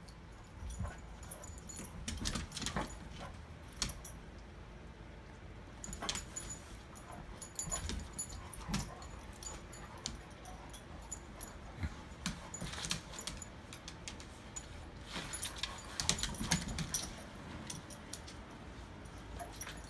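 Clumber spaniels playing: scuffling and sharp clinking noises in irregular bursts.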